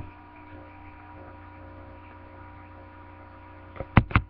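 Steady low electrical hum with a few faint fixed tones above it, typical of a webcam recording's background. A few sharp clicks come in near the end.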